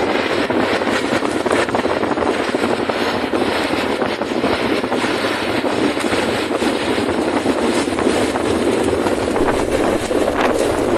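Steady, loud rushing roar of wind around a burning fire whirl, with no breaks or distinct events.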